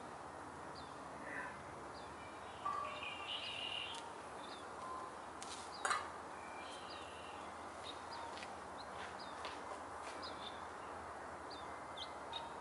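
Steady outdoor background hiss with scattered faint bird chirps and a brief high trill about three seconds in. Near six seconds, a metal bowl clinks once as it is set down on concrete.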